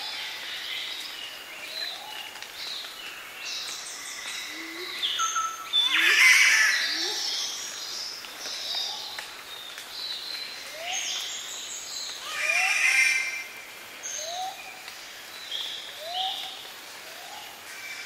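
Highland rainforest morning bird chorus with spotted catbirds and Lewin's honeyeaters, many calls overlapping. Two louder, harsher calls stand out, about six seconds in and again about twelve and a half seconds in. A low, short rising call repeats about once a second through the second half.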